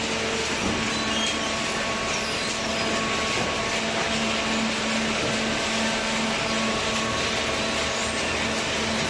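Hydraulic cardboard baler running: a steady mechanical drone from its motor and pump, with a faint hum underneath.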